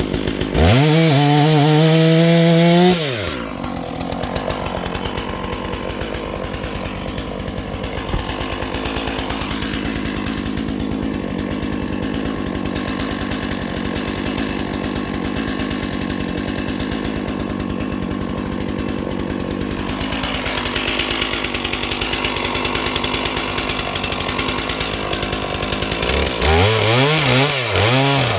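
Stihl MS 461 two-stroke chainsaw revving up to full throttle, then running loaded and rough through a long stretch of cutting as it rips a cedar log along the grain. Near the end it is blipped up and down several times.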